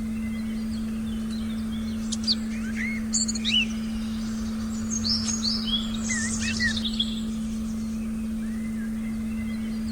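Recorded forest ambience: several birds chirping and calling in short rising and falling notes, busiest from about two to seven seconds in. Under them runs one steady low meditation tone without a break.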